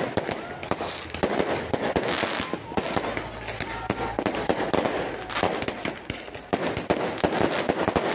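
Aerial fireworks going off in rapid succession: sharp bangs and crackling, one after another, with no pause.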